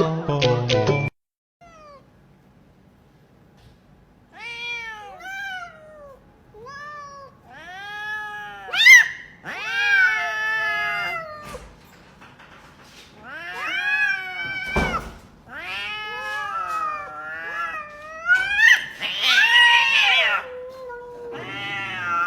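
A cat meowing over and over, about a dozen drawn-out meows that rise and fall in pitch, the loudest near the end. A second of music at the start.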